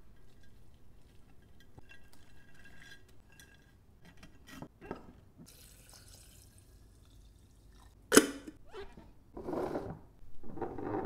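A glass jar being filled: faint clinks and taps as sliced radish is packed in, then liquid poured in with a soft hiss. About eight seconds in comes one sharp knock, followed by the scraping of a screw-top lid being twisted shut near the end.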